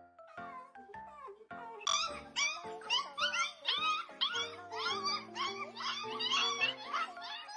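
Puppies crying and whimpering in short, high-pitched calls that rise and fall, several a second, starting about two seconds in, over background music.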